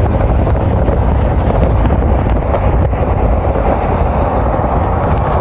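Steady road noise of a car driving, heard from inside the cabin, with a strong low rumble and no distinct events.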